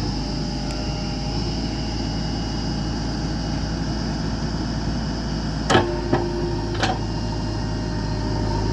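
Heavy diesel engine of a JCB backhoe loader running steadily, with three sharp metallic clanks a little past halfway through.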